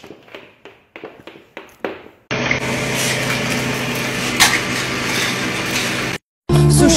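A few light taps, then from about two seconds in, an egg frying in a pan: a steady, loud sizzle that cuts off suddenly near the end.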